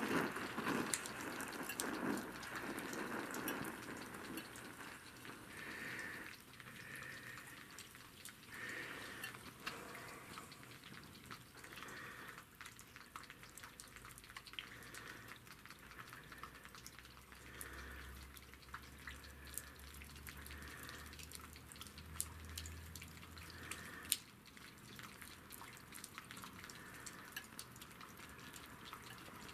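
The priming flame of an LSO 618/619 gasoline camping stove burning freely around the burner, with scattered faint crackles and ticks over a soft hiss and one sharper click a few seconds before the end. This is the preheating stage, warming the generator tube before the fuel valve is opened.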